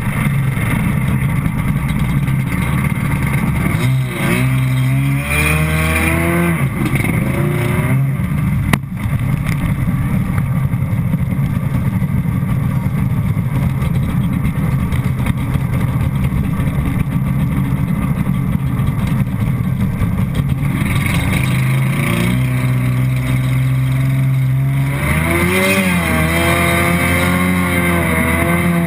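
Stand-up jet ski engine running close to the hull-mounted microphone, mostly steady, revved up in rising surges about four seconds in and again near the end as the craft gets going, with a single sharp click about nine seconds in.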